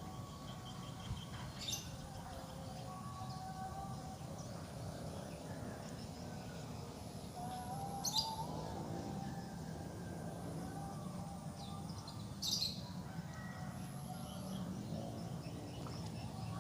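Birds chirping over a steady low background hum. There are three short sharp chirps, near the start, about halfway and about three-quarters through, with fainter whistled calls between them.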